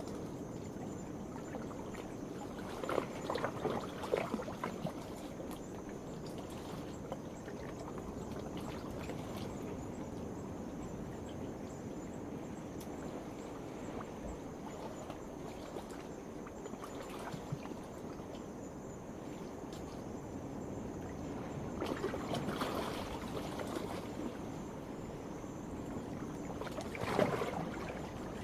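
Small waves washing and splashing against a rocky shore, with a few louder surges, over a steady high-pitched chorus of night insects.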